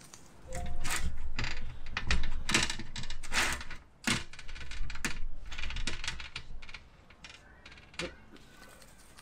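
A shaker bottle of dry rub being shaken over meat: a rapid, uneven run of sharp rattles and clicks, dying away after about seven seconds with one last click near the end.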